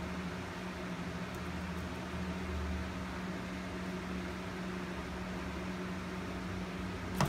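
Steady low machine hum with an even hiss, holding one constant low tone, and one sharp click near the end.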